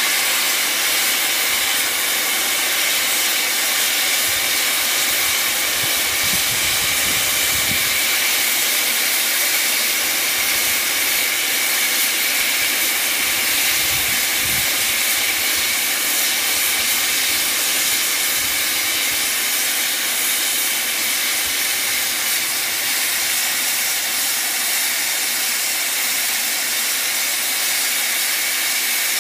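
The boiler of William Hedley's 1813 Wylam steam locomotive blowing off excess pressure: a loud, steady hiss of escaping steam, unbroken throughout, with a faint high tone held in it.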